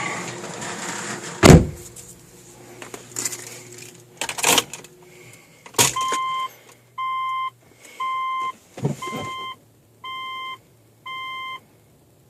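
A 2006 Subaru Legacy GT's cabin warning chime beeping six times, about once a second, from about halfway through. Before it come a heavy thump, the loudest sound, and a few lighter knocks and clicks.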